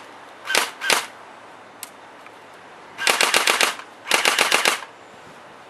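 CMO22 electric airsoft rifle firing: two single shots on semi-auto, then two short rapid full-auto bursts about a second apart.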